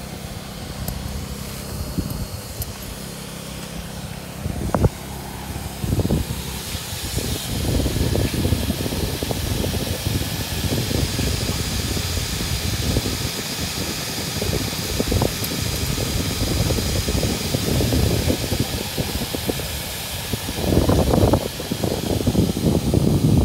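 Electric air blower running steadily as it inflates an inflatable floating deck, a continuous fan hiss, with irregular low rumbling and a few knocks over it.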